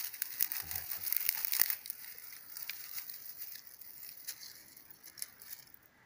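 Dry twigs crackling and snapping as they are handled and broken by hand, dense for the first couple of seconds, then sparser and quieter.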